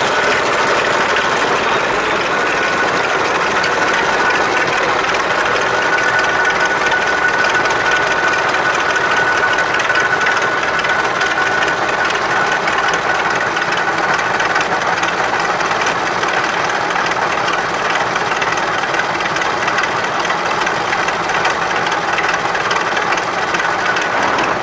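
UTB 650 tractor's four-cylinder diesel engine idling steadily.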